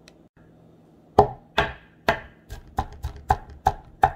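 Kitchen knife dicing onion on a wooden cutting board: sharp, regular chops about three a second, starting about a second in.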